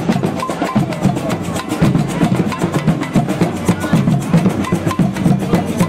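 Percussion-led music: drums playing a fast, busy rhythm of many quick hits, with voices faintly mixed in.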